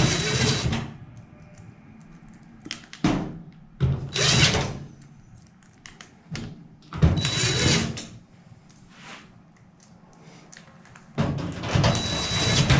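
Power driver running screws into a fireplace's sheet-metal back panel in four short bursts of about a second each, a thin whine through most of them, with clicks and knocks of handling between.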